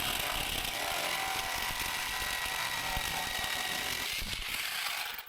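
Jigsaw running and cutting through a spruce board, a steady buzz with a held motor whine.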